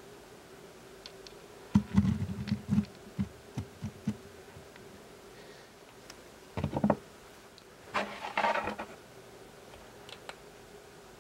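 Hollow plastic knocks and bumps as a 3D-printed ABS lampshade is handled and set down over the LED-strip core onto its base, followed by a short rustling clatter of the cable and a few small clicks from the inline LED controller. A faint steady hum sits underneath.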